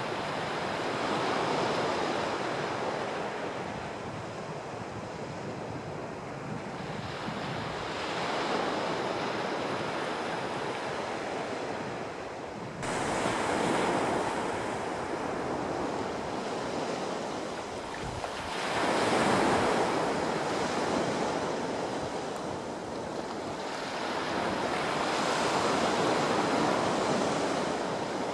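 Small sea waves breaking and washing up a sandy shore, the surf hiss swelling and easing every few seconds.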